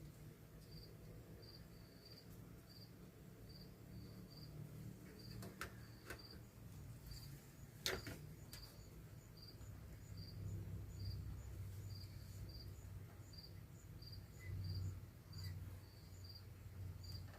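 A cricket chirping steadily, about two short chirps a second. A few sharp clicks and knocks fall across it, the loudest about eight seconds in.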